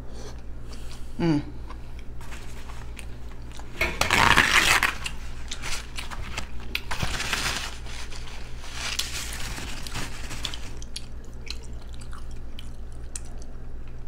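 Close-miked mukbang chewing: a person chewing and biting a mouthful of fried cabbage, with soft wet mouth clicks and a louder noisy stretch about four seconds in. A steady low hum lies under it.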